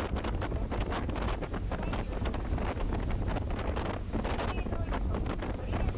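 Wind buffeting the microphone over the steady low rumble of a small ferry under way, with water splashing and rushing along the hull.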